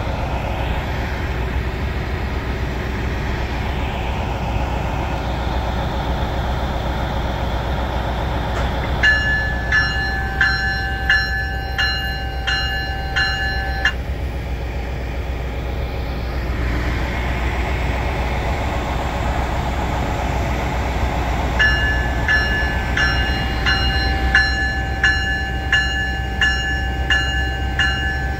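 Siemens Charger SC-44 diesel locomotive running with a steady low rumble while its bell rings in an even series of strokes, about two a second, once for about five seconds starting about nine seconds in and again from about twenty-two seconds on.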